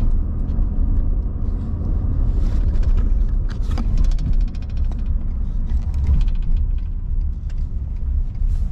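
Steady low rumble of a car at a tunnel car wash, with scattered faint ticks and clicks, a cluster of them a few seconds in.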